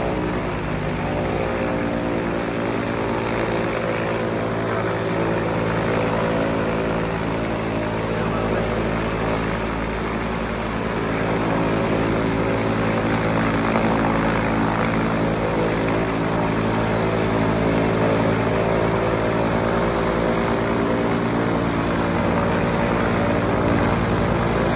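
Twin turboprop engines of a DHC-6 Twin Otter running as the aircraft taxis: a steady propeller drone with a hum of many even tones, growing a little louder about halfway through.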